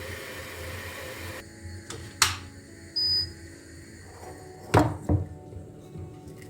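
A steady low hum that stops about a second and a half in, then a sharp click, a short high beep, and two knocks in quick succession.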